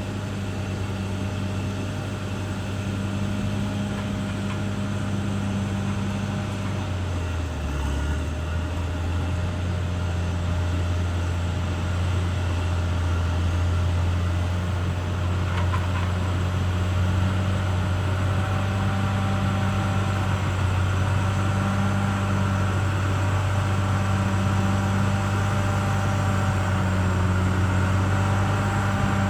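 CAT D6R XL bulldozer's diesel engine running steadily while working, its note dipping briefly about seven seconds in, with faint higher whining tones over the hum.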